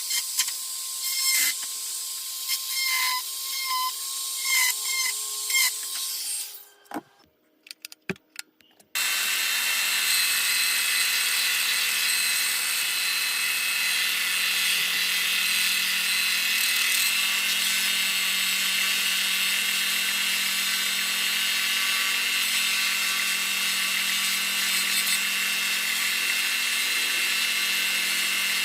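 Handheld rotary tool carving wood: short, irregular scraping strokes for about six seconds, a brief pause with a few clicks, then from about nine seconds the tool runs steadily with a high-pitched whine, grinding into the wood.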